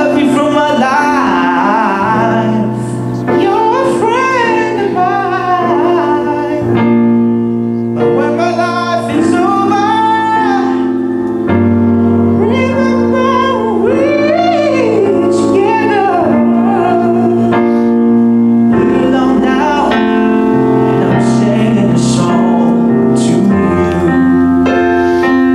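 A young man singing a slow song while accompanying himself on piano, with long held notes sung with vibrato over sustained chords.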